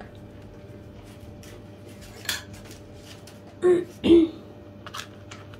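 Light clicks and taps of plastic album packaging being handled on a tabletop, with a sharper click a little after two seconds and two short louder knocks about four seconds in.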